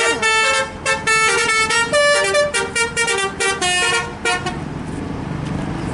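Indonesian "telolet" bus horns: multi-tone musical air horns blowing a quick melody of short notes that step from pitch to pitch. They stop about four and a half seconds in, leaving a low engine rumble.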